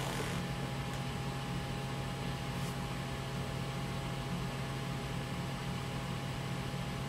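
Desktop PC running with a newly installed GeForce 9600 GT graphics card: a steady fan whir over a low, even hum.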